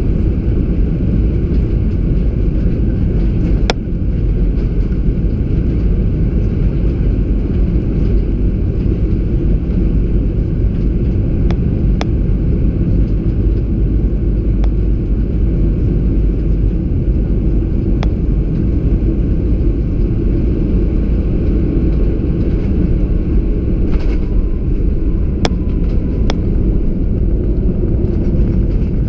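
Steady low rumble in the cabin of an Airbus A320-200, from its engines and the airflow, with a few faint light clicks.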